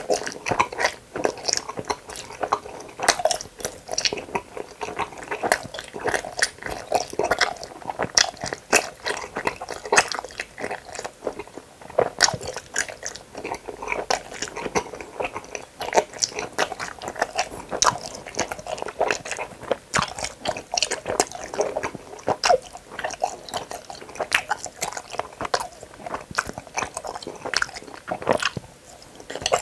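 Gummy hamburger jelly candy being chewed into a nearby microphone: a dense, continuous run of small sticky mouth clicks.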